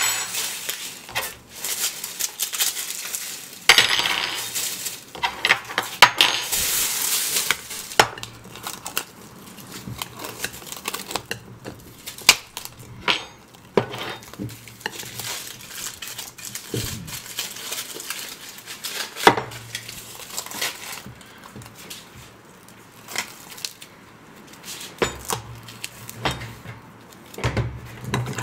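Takeout food being unpacked and laid out on a table: scattered clinks and knocks of plates, bowls and containers, with plastic bag and wrap rustling, loudest for a few seconds near the start.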